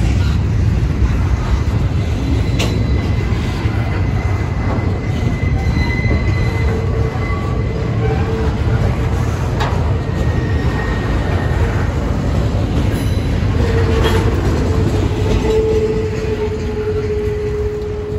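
Double-stack intermodal container train's well cars rolling past: a steady, loud low rumble of steel wheels on rail, with thin held squeals from the wheels and a few sharp clicks.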